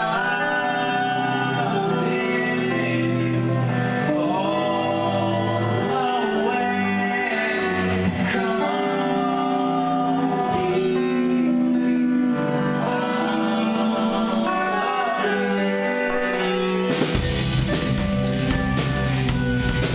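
Live rock band playing: a male voice singing over plucked guitar. About seventeen seconds in, drums and bass come in and the sound fills out.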